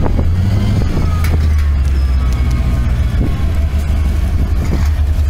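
Chevrolet Corvette C4's V8 engine running at low speed as the car rolls slowly by: a steady, deep engine note.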